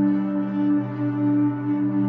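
Ambient background music of long, held tones.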